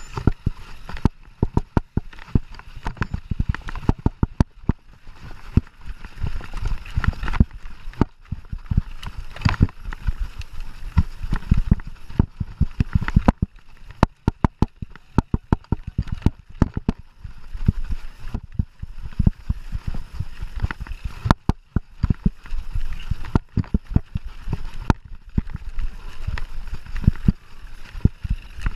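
Mountain bike ridden over rough cross-country trail: dense, irregular rattling and knocking from the bike over a low rumble.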